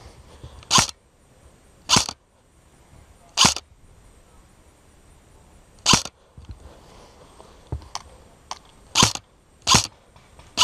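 Airsoft rifle fired in single shots, each a short sharp pop, six loud ones at uneven intervals with a couple of fainter pops between them.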